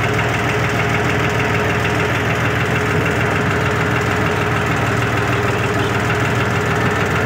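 Farm tractor's diesel engine running steadily under load, pulling a tine cultivator through the crop rows.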